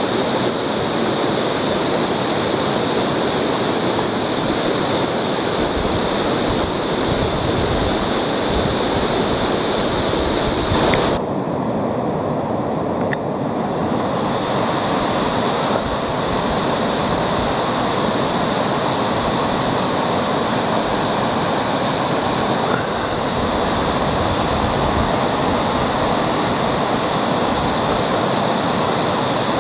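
Steady rushing of river water pouring over a rocky riffle, with the highest part of the hiss dropping away sharply about eleven seconds in.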